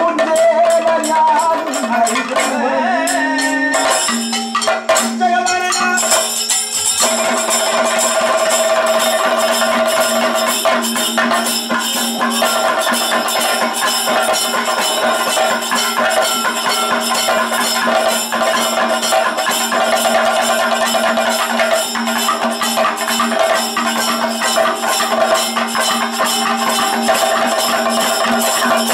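Kathakali accompaniment: a sung line in the first few seconds, then fast, dense percussion of drums and clashing hand cymbals with a steady metallic ringing underneath, which carries on.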